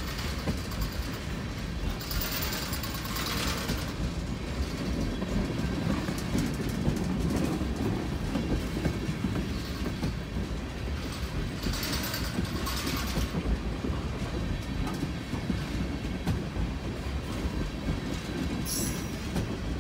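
Freight train of tank cars rolling past at close range: wheels rumbling steadily on the rails. Brief bursts of higher-pitched noise come about two seconds in, again around twelve seconds, and briefly near the end.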